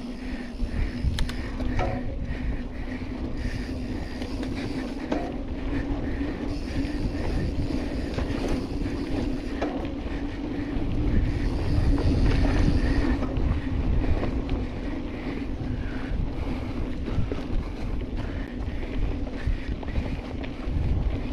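Wind buffeting the microphone of a camera mounted on a moving mountain bike, over the rolling noise and small rattles of the bike on a rough dirt trail. The rumble grows louder about halfway through.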